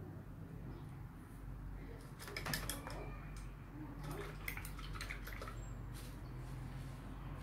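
Two short clusters of light clicks and taps, about two seconds in and again a little after four seconds, from art supplies handled on a table, as when a paintbrush is set down or knocked against a jar. A steady low hum runs underneath.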